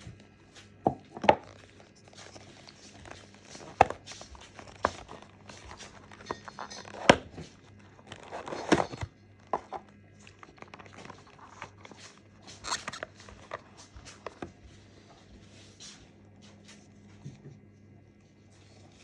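Irregular clicks, taps and plastic crinkling as a 1:64 diecast model car and its plastic packaging are handled, over a faint low steady hum.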